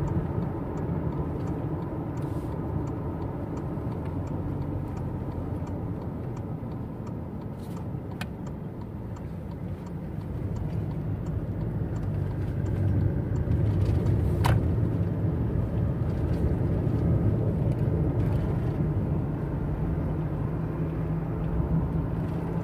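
Steady low engine and tyre drone of a car being driven, heard inside the cabin, growing louder about ten seconds in, with a single sharp click about two-thirds of the way through.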